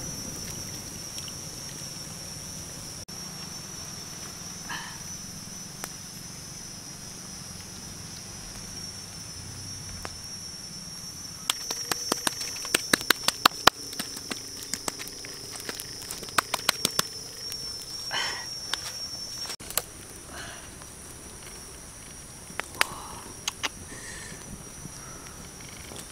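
A steady, high-pitched drone, typical of a forest insect chorus. A rapid run of sharp clicks comes in the middle, and a few short chirps are scattered through.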